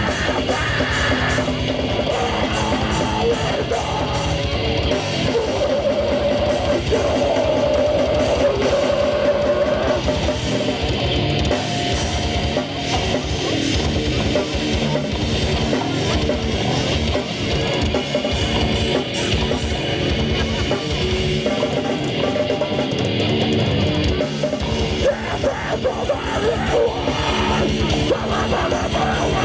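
Heavy metal band playing: rapid, dense drumming on a drum kit under electric guitars.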